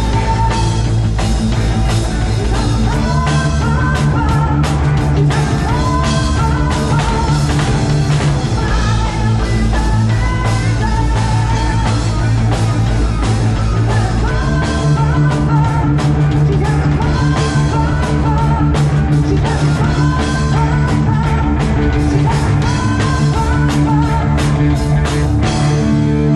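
A heavy rock band playing live at full volume: distorted electric guitars, bass and a drum kit hammering out the song, with a wavering lead line above the chords.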